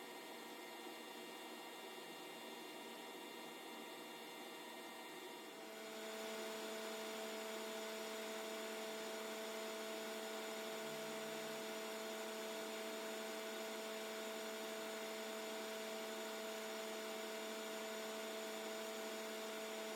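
Faint steady machinery hum, a little louder from about six seconds in, when a few steady tones join it.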